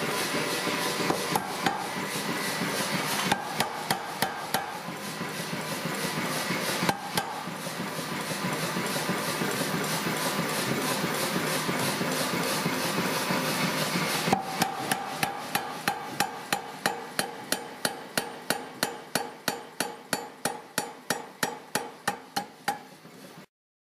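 Mechanical power hammer pounding a red-hot bar of forklift-tine steel, at first in a fast, dense run of blows with a metallic ring. In the last third the blows come as separate strikes about three a second, each fainter than the last, then stop abruptly.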